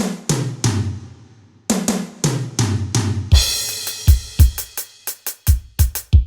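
Drum and percussion samples triggered on a Roland SPD-30 Octapad electronic percussion pad. There are three hits, a short pause, then an even run of strikes, and from about three seconds in a busier pattern with deep bass-drum thumps and cymbal.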